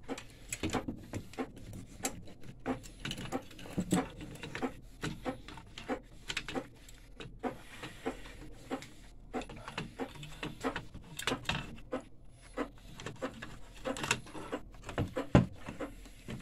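Irregular clicks, taps and knocks of metal and plastic printer parts being handled and fitted into the printer's sheet-metal chassis, with one sharper knock about fifteen seconds in.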